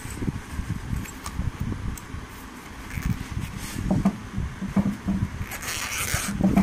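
Rustling and scraping of a polyester backpack being handled, over a rumbling handling noise, with a louder rustle near the end.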